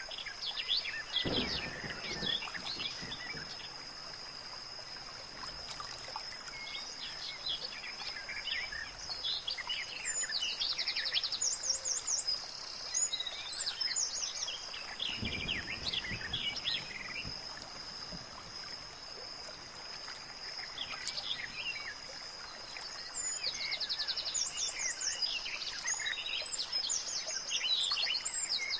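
Outdoor nature ambience: birds chirping and trilling again and again, over a steady high-pitched tone and a soft background hiss.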